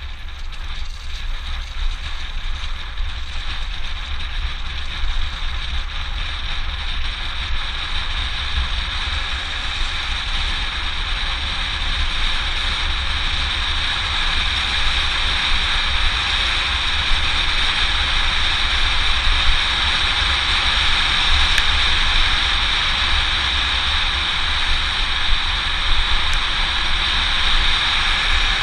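Steady rush of wind over an action camera's microphone, with tyre noise, as a mountain bike descends a paved road at speed. The rush grows gradually louder as the speed builds.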